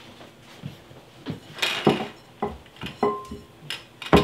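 A run of irregular knocks and clinks from a glass mixing bowl being handled on a granite countertop while cookie dough is gathered out of it by hand. A few strikes leave the glass ringing briefly, and the loudest comes near the end.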